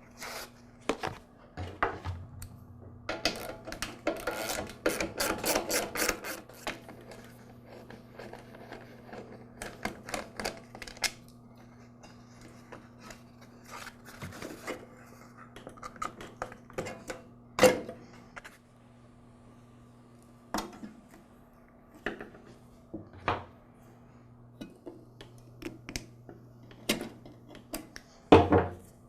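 Hand tools and metal parts clicking and clattering as a carburetor is unbolted from a lawn mower engine, with a fast run of clicks a few seconds in and two sharp knocks, one about halfway and one near the end.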